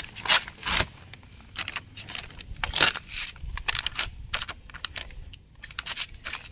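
Thin plastic sheet crinkling and crackling as scissor tips are pushed through it to make drainage holes. The crackles come irregularly, the sharpest near the start and about three seconds in.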